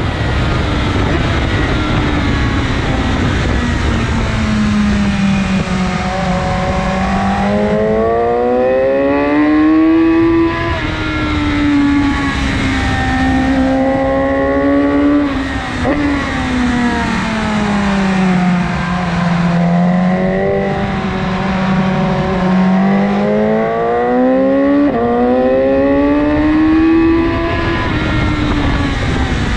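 2019 BMW S1000RR's inline-four engine through an Akrapovic exhaust, revving up and easing off several times at track speed, its pitch rising and falling, with wind rushing over the microphone.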